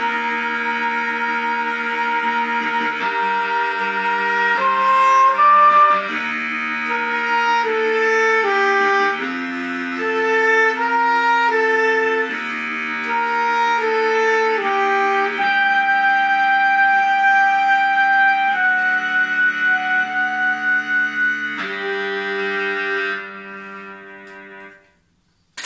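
Soprano saxophone playing a slow melody of long held notes over a backing track of sustained chords. Near the end the saxophone stops and the accompaniment fades out.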